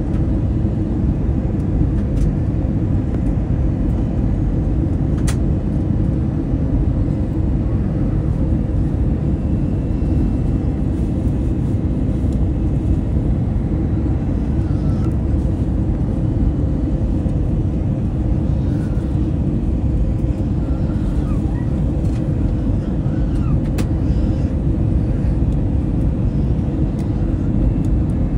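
Airliner cabin noise during the descent to land: the engines and rushing air make a loud, steady low rumble with a faint even hum, heard from inside the cabin.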